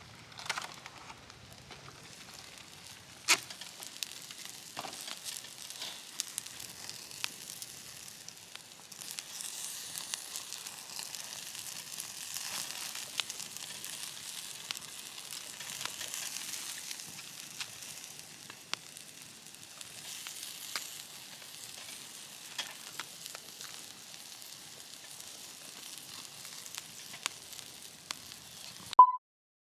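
Food sizzling on a grill over a wood campfire: a steady high hiss with scattered crackling pops from the fire. It grows a little louder in the middle, and a sharp click near the end is followed by a sudden cut-off.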